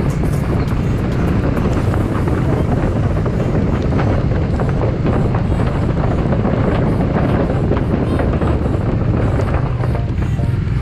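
Bajaj Dominar 400 motorcycle's single-cylinder engine running steadily while riding, with wind on the microphone and scattered small clicks.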